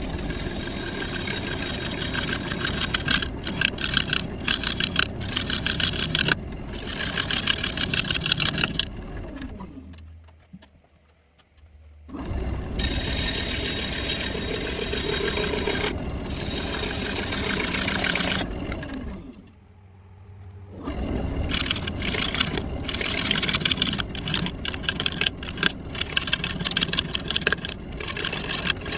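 Wood lathe spinning a walnut blank while a turning gouge cuts into it, a rough, scraping, chattering cutting noise. Twice, about ten and twenty seconds in, the cutting noise dies away to a faint hum for a second or two before the cut starts again.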